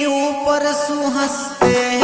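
Song music: a melody of held notes, with drum beats coming in near the end.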